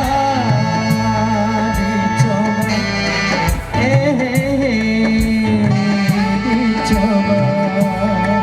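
Live dangdut band playing: a sustained melody line that bends and slides in pitch over a steady bass, with cymbal strokes about every two-thirds of a second.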